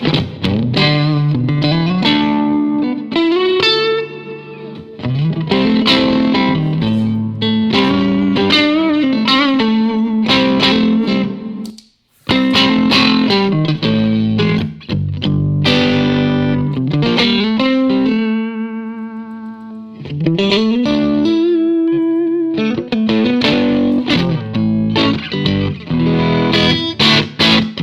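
Fender Stratocaster on its neck pickup played through a 1959 Fender 5F6-A tweed Bassman tube amp. Single-note lines with string bends, a brief stop about twelve seconds in, and a chord left ringing and fading near the two-thirds mark.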